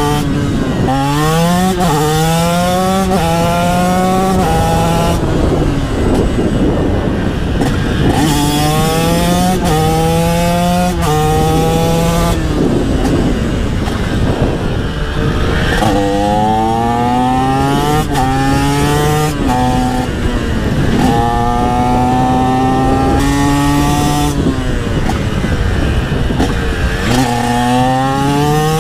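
TM SMR 125 two-stroke supermoto with an HGS aftermarket exhaust, accelerating hard through the gears: the engine note climbs repeatedly and drops back at each upshift. Twice the engine note gives way to rushing wind noise as the throttle is rolled off.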